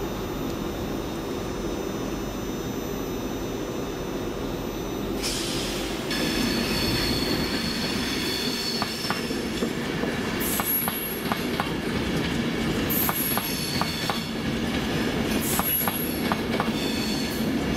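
Virgin Trains Class 390 Pendolino electric train running through the station, its wheels squealing in high thin tones on the curving track, with irregular clicks and clacks as the bogies cross rail joints and points. The squeal starts about five seconds in, after a steady low rumble.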